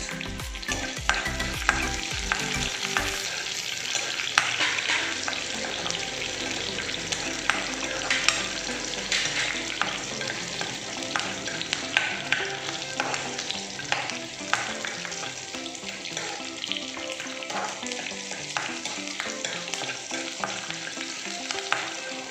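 Garlic, green chillies and curry leaves sizzling in hot oil in a nonstick kadai while being stirred for a tempering, with a steel spoon clicking and scraping against the pan many times.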